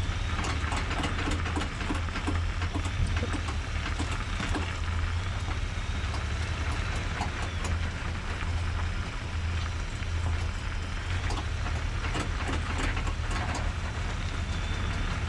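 Ford Ranger driveline heard from underneath, by the drive shaft, while accelerating and turning in four-wheel drive: a steady low drone from the running truck with irregular clicks and knocks. The knocking only happens in 4x4 when turning under power, and was traced to loose bolts.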